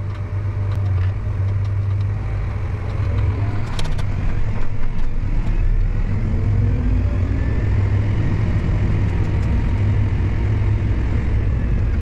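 Farm tractor engine running steadily at road speed while towing a grain cart, a deep steady drone with road noise, and a few light rattles about four seconds in.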